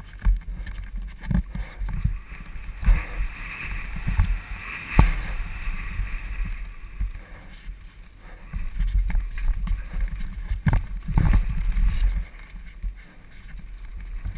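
Wind rumbling on a helmet-mounted camera's microphone during a mountain-bike descent of a dirt trail, with the bike rattling and sharp knocks as it hits bumps, a few of them standing out.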